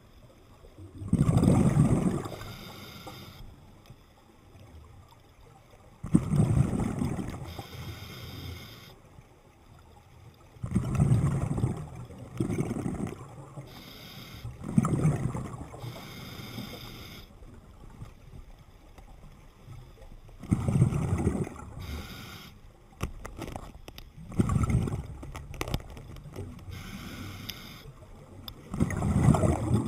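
Scuba diver breathing through a regulator underwater: a rush of exhaled bubbles every four to five seconds, with quieter hiss in between.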